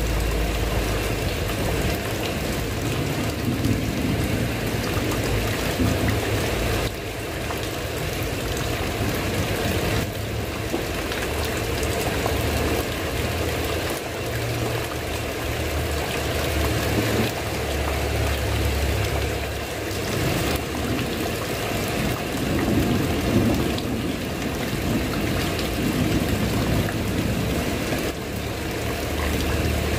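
Steady heavy rain falling on a roof and the ground, a continuous even hiss, with a low rumble underneath that swells and fades.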